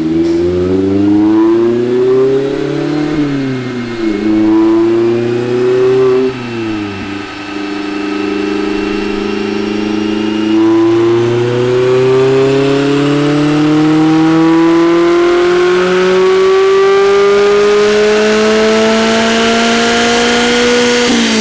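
Mazda MX-5 Miata RF's 2.0-litre four-cylinder running on a chassis dyno through a Goodwin-Racing RoadsterSport SuperStreet axle-back exhaust with its baffle removed. The revs rise and fall three times over the first several seconds and hold briefly. Then comes a long full-throttle dyno pull, the engine note climbing steadily in pitch for about ten seconds before the throttle is lifted near the end.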